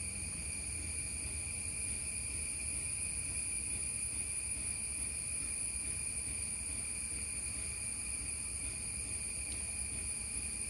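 Steady insect chorus, a continuous high-pitched drone that does not change, over a low rumble.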